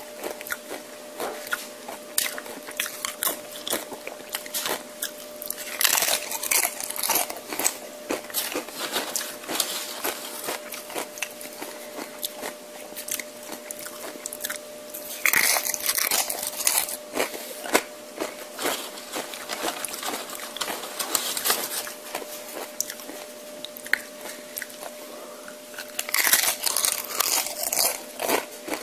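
Close-miked chewing and crunching of tortilla chips, with loud crunchy bites about six seconds in, around the middle, and near the end, and steady chewing between them. A steady hum runs underneath.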